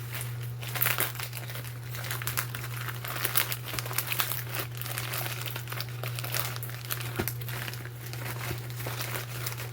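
Packaging crinkling and rustling in irregular crackles as it is handled and unwrapped by hand, over a steady low hum.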